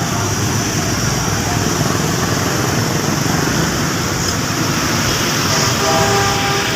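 Steady, loud rush of heavy rain mixed with road traffic noise, with brief faint tones near the end.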